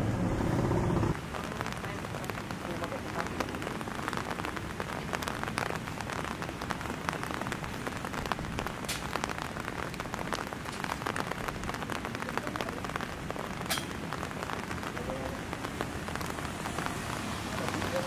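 Steady rain falling, a dense patter of drops on hard surfaces. A louder low rumble cuts off about a second in.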